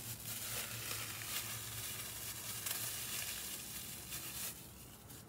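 Crinkling and rustling of packaging being handled, a steady crackly noise that fades out near the end.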